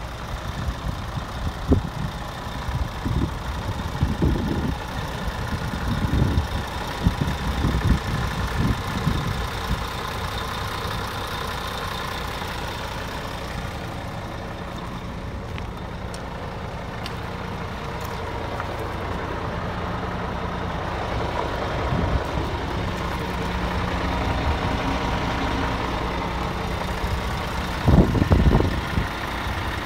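Scania R450 tractor unit's 13-litre six-cylinder diesel idling steadily, with irregular low rumbling bursts over the first ten seconds and again near the end.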